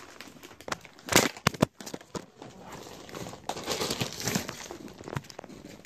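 A camera knocked over and handled: a few sharp knocks about a second in, then rustling and crinkling as it rubs against fabric.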